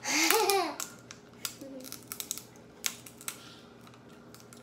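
A young child's short wordless vocal sound, rising then falling in pitch, followed by scattered sharp clicks and crackles of crab leg shells being cracked and eaten.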